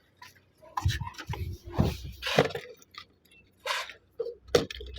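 Irregular knocks, clicks and rustles of handling noise, a string of short dull thumps with no engine running.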